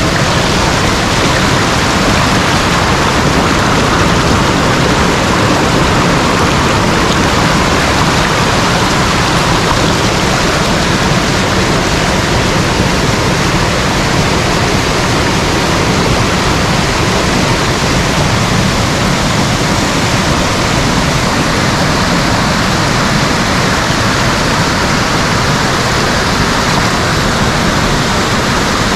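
Waterfall: water falling and splashing in a loud, steady rush with no breaks or changes.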